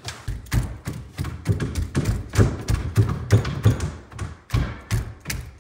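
Rapid knocking on the wooden sink-base cabinet, about four blows a second, to break free a piece held by a screw that can't be reached.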